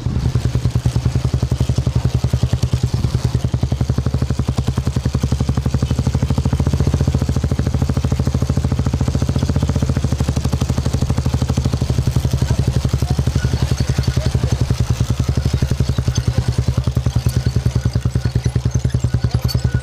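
Royal Enfield Bullet single-cylinder engine idling through an aftermarket silencer, a steady, even, fast thump of exhaust beats with no revving.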